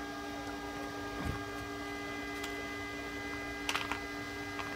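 Steady mains hum, several tones held together, from the electrical setup while about 10 amps still flows through the meter's test leads. A few faint clicks come in near the end.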